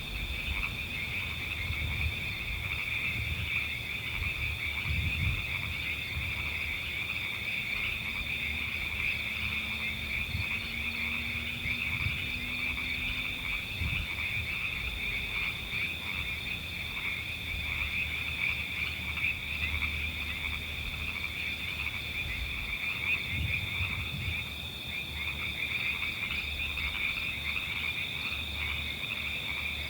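Dense chorus of many frogs calling continuously: a thick chatter of overlapping high calls with one steady high note running through it, over a low rumble.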